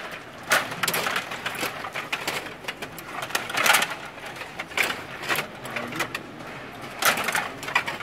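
Stiga rod table hockey game in fast play: rapid clacking and rattling of the steel rods and plastic players being spun and shoved, with the puck knocking against players and boards. The clatter comes in denser bursts about half a second in, around three and a half seconds, and about seven seconds in.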